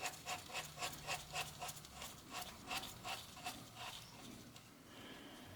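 Front axle bolt of a Honda VTR1000 FireStorm being screwed into the fork: a run of short, even rasping strokes, about three to four a second, that fade out about four seconds in.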